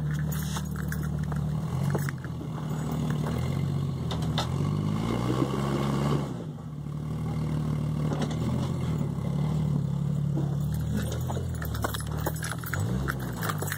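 Jeep Grand Cherokee ZJ's engine running at low revs under load on a rocky climb, its pitch rising twice, about five seconds in and again near the end, with scattered clicks and knocks.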